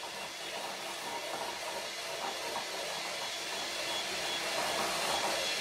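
Electric hand mixer running steadily, its beaters whipping cream in a glass bowl, growing slightly louder over the few seconds.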